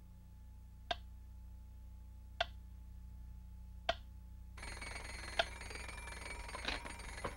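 A clock ticking slowly in a quiet room, three sharp ticks about a second and a half apart. A little past halfway, a steady hiss comes in.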